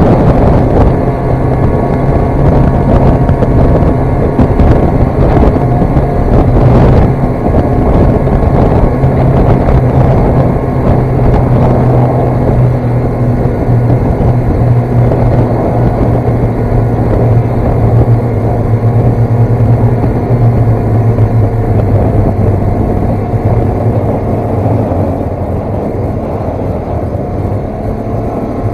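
Snowmobile engine running steadily under way, a constant engine drone that eases off a little near the end.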